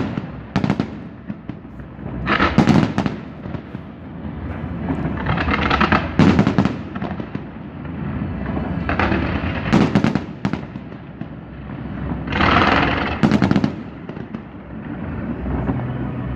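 Fireworks going off: loud shell bursts about every three to four seconds, with smaller pops and crackle between them.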